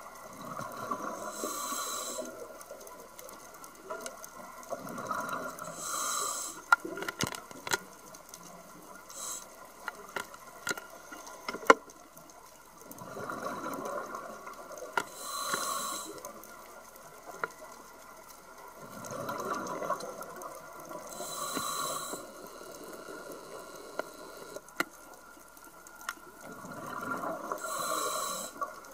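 Scuba regulator breathing heard underwater: about five breaths, each a hiss through the regulator and a rush of exhaled bubbles, with scattered sharp clicks in between.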